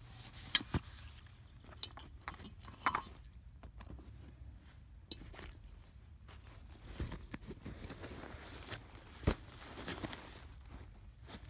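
Rustling and crinkling of nylon stuff sacks and a Tyvek tarp being handled on leaf-littered ground, with scattered sharp clicks and knocks, the loudest about nine seconds in.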